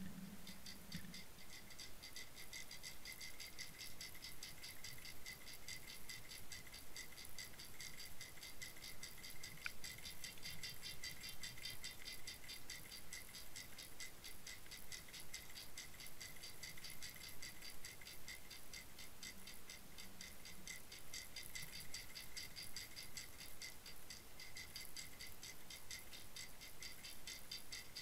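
Rapid, even ticking and rattling picked up underwater during the retrieve of an Abu Garcia Jointed Tormentor crankbait. A faint steady high tone runs under it.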